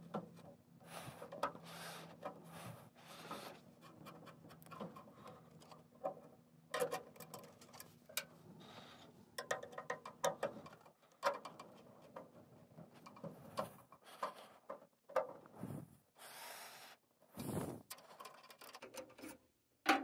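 Phillips screwdriver working small metal screws loose: faint, irregular scraping and clicking of the bit in the screw heads, on and off.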